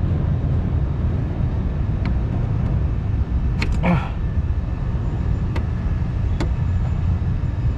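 Steady low background rumble with a few short, sharp metallic clicks of a fuse-holder clip being worked with a tool.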